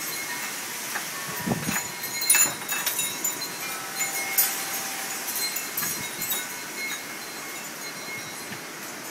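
Hurricane wind rushing through a large leafy tree, a steady hiss of rustling leaves, with a few brief gusts knocking on the microphone.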